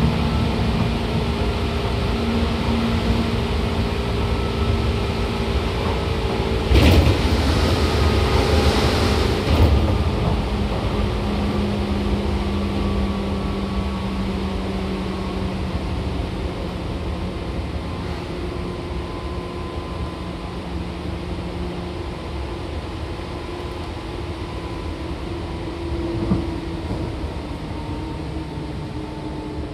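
Running sound inside a Seibu 2000 series electric commuter train: steady hum of traction motors and gearing with several tones that slowly fall in pitch, the whole growing gradually quieter. About seven seconds in, a sharp click opens a loud rushing noise that lasts about three seconds.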